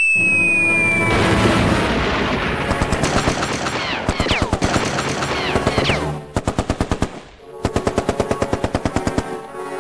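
Battle sound effects: a falling whistle that ends about a second in, then dense noise with more falling whistles, then two bursts of rapid machine-gun fire at about ten shots a second.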